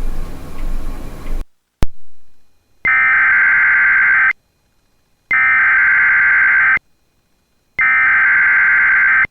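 Emergency Alert System SAME header: three identical bursts of screechy two-tone digital data, each about a second and a half long with a second's pause between, announcing an alert. Before them a steady hiss cuts off, followed by a single sharp click.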